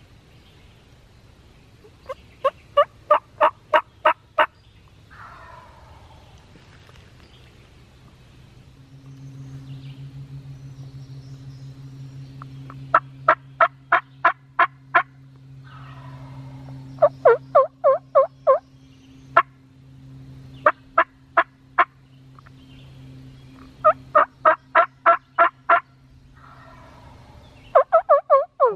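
Wild turkeys calling: several loud series of sharp yelps, about four notes a second. After some of the series a fainter gobble answers, about a second long and falling. A steady low hum joins about nine seconds in.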